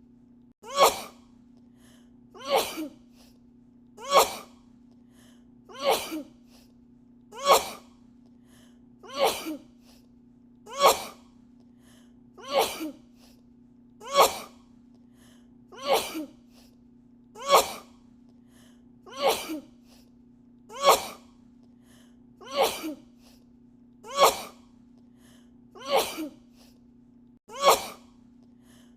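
A woman sneezing over and over at an even pace, about one sneeze every second and a half to two seconds, each a sharp burst with a smaller second catch right after; the sneeze is repeated as an edited loop. A steady low hum runs underneath.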